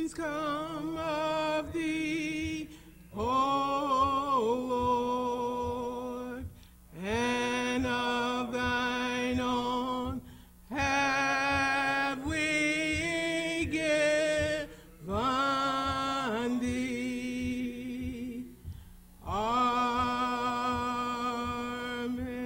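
Unaccompanied singing of a slow hymn, the notes drawn out in long phrases of a few seconds each with short breaks between them. Soft, evenly spaced taps keep time beneath the singing.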